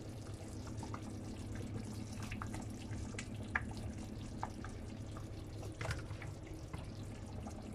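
Browned pork cubes dropped from a metal slotted skimmer into a pot of tomato sauce: scattered soft plops, drips and faint clicks of the skimmer, repeated many times over a steady low hum.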